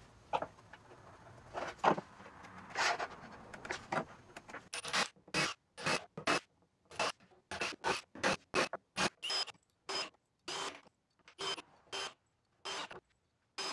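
Repeated short scraping strokes, about two a second, starting about five seconds in, with fainter, more irregular rubbing and scraping before that.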